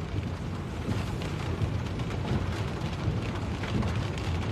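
Heavy rain pattering on a moving car, heard from inside, over a steady low rumble of the car driving along the flooded road.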